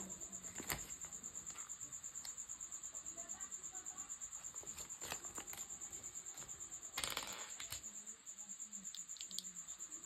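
A cricket chirping in a steady, fast, even pulsing trill, with a few sharp clicks and rustles of a paper leaflet and small plastic cube parts being handled. The loudest is a burst of clicks about seven seconds in.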